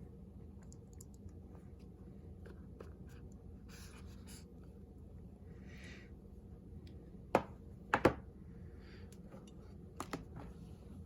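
Handling of a phone's paper-and-cardboard retail box and packaging: soft rustling and sliding, with a few sharp taps in the second half.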